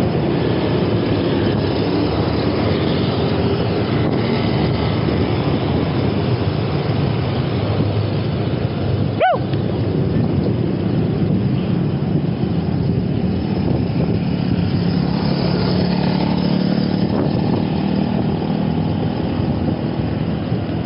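Steady rushing of wind over the microphone and traffic noise while riding a fixed-gear bicycle, with one brief high chirp about nine seconds in.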